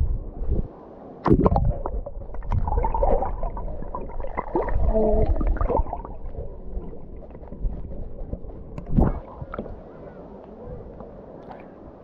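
Shallow sea water sloshing and lapping around someone standing knee-deep, with wind buffeting the microphone in uneven gusts that ease off in the second half.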